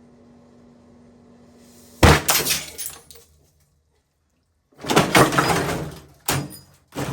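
Microwave oven humming steadily, then about two seconds in a loud bang of breaking glass as a shaken, full glass beer bottle bursts inside it. After a brief dead gap, more loud crashing and clattering follows, with a sharp hit near the end.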